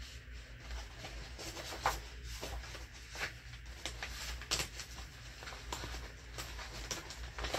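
Scrapbook paper being handled: short, scattered rustles and taps of paper sheets on a cutting mat, over a low steady hum.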